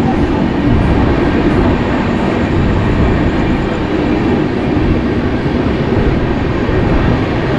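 Running noise of an express passenger train pulling out of a station, heard at an open coach door: a steady, loud rumble of wheels on the rails.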